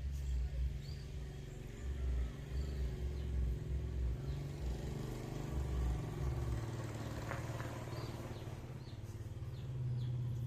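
Metal lathe running with a steady low hum and an uneven low rumble that fades out about two-thirds of the way through. Faint bird chirps are heard now and then.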